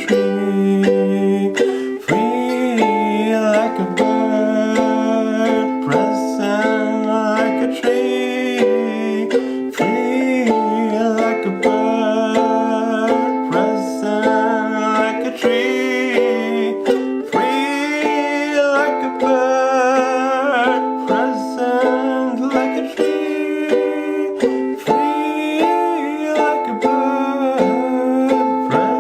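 Singing with wavering pitch over steadily strummed chords on a plucked string instrument, in a small room.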